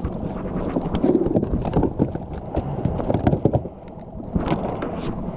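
Irregular knocks and rattles as a landing net holding a freshly caught halibut is handled against a small boat's deck and gear, over a steady wind rush on the microphone.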